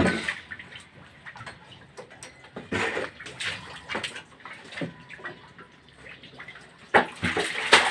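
Water splashing and sloshing in a flooded underground concrete pit, in irregular splashes, with a sudden sharp impact about seven seconds in followed by louder splashing.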